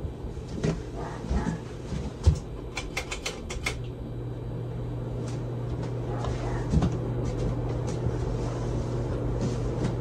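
Hunter Original ceiling fan running with a steady low motor hum. A scatter of clicks and knocks, including a quick run of sharp clicks about three seconds in, sits over it. After about four seconds the hum grows stronger and the sound rises slowly.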